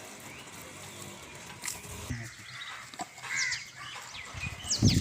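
Birds chirping outdoors: scattered short, quick sliding calls. Just before the end a louder low rustling with knocks sets in, like handling noise.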